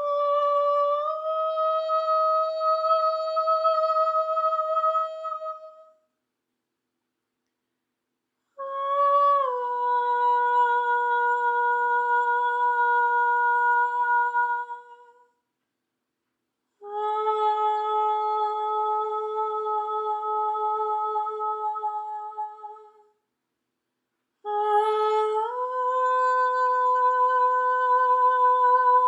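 A woman humming long, steady held notes, four in turn of about six seconds each, with a short silence between them. Each note slides up into its pitch at the start.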